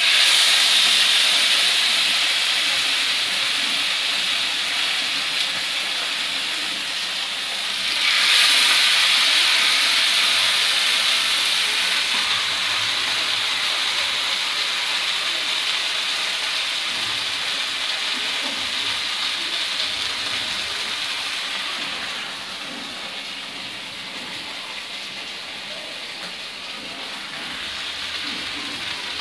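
Oodan fish sizzling loudly in hot frying oil. The hiss starts suddenly, flares up again about eight seconds in, then slowly dies down.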